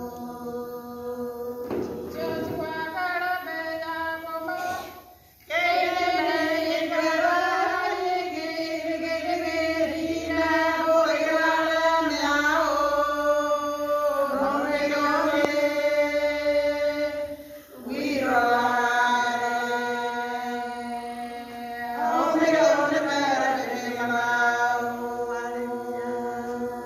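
A group of women singing a hymn together in long held notes, with short breaks between phrases about five seconds in and near eighteen seconds.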